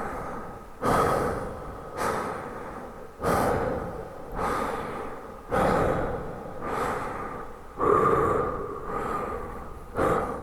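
A man breathing deeply, in and out in a steady rhythm, each stronger breath followed by a softer one, a full in-and-out cycle about every two seconds.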